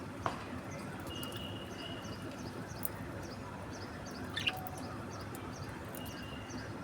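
Budgie chirping: a sharp short call just after the start, a held high whistle, a louder short call midway and another brief whistle near the end. Under it runs a faint high chirping that repeats about twice a second.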